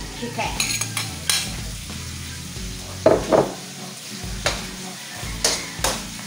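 Stir-fry for pancit bihon sizzling in a pan while it is stirred: a steady sizzle with several sharp scrapes and knocks of a utensil against the pan. The loudest knocks come about three seconds in.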